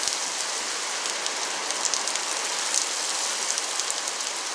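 Heavy thunderstorm rain falling steadily, with many scattered sharp drop hits.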